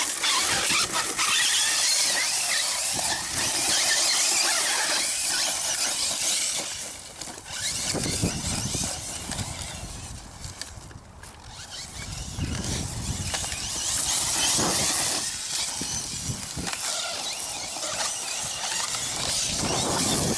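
1/8-scale electric RC truggy driving hard over rough, rocky ground: a whining motor and drivetrain over the noise of tires on gravel. It eases off briefly about ten seconds in.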